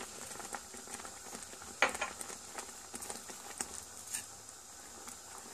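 Wire whisk stirring a thick spinach béchamel in a steel pot, with a few sharp clicks of the whisk against the pot over a faint simmering hiss.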